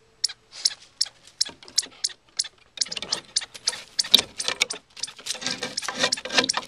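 Small dog pawing and digging at a gap between weathered wooden boardwalk planks, its claws clicking and scraping on the wood. Sharp separate clicks at first, turning into a dense run of scratching about three seconds in.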